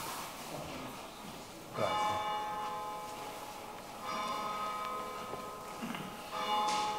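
A bell tolling: three strokes about two seconds apart, each ringing on and fading slowly.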